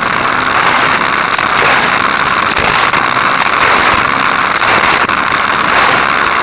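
Hot Wheels Sizzlers car's small electric motor running at speed, with its wheels rattling along the plastic track, heard close up through the onboard keychain spycam's microphone as a loud, steady noise.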